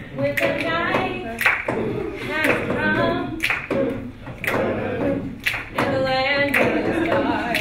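A cappella group singing by a class of students, with a woman's voice leading. A sharp beat, claps or snaps, keeps time about once a second.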